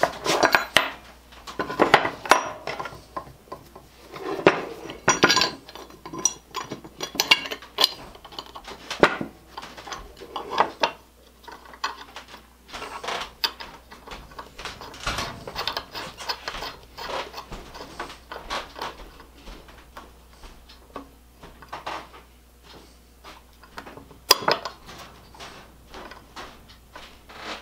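Metal parts of a small bench vise clinking and clattering as they are handled and fitted together by hand: irregular knocks, clicks and scrapes, busier and louder in the first half, lighter ticks later on.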